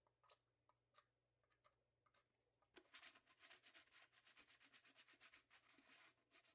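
A few faint short scrapes of a knife trimming burrs off a cut PVC pipe elbow. Then, about three seconds in, a sheet of sandpaper is rubbed rapidly back and forth over the PVC edge to smooth it.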